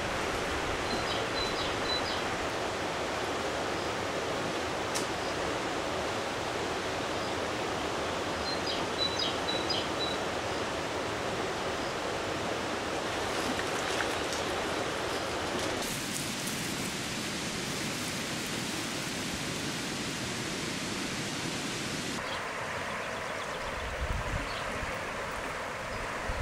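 Steady rush of a flowing trout stream over stones, with a few faint short high chirps twice in the first half.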